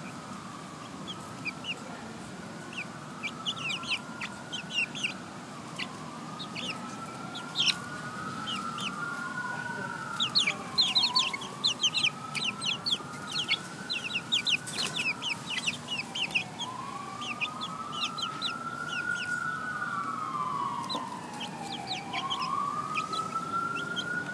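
Young chickens peeping in many short, high calls, most thickly about ten to fifteen seconds in. Underneath, a siren wails, rising and falling slowly in overlapping sweeps.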